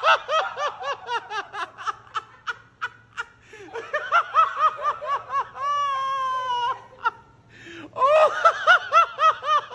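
A person laughing hard in quick, high-pitched bursts, broken about six seconds in by one drawn-out squeal that falls slightly, then a short pause before the laughing starts again.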